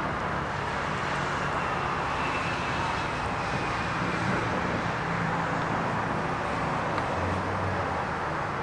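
Steady outdoor background noise, an even rumble and hiss, over a person chewing a large mouthful of sushi roll.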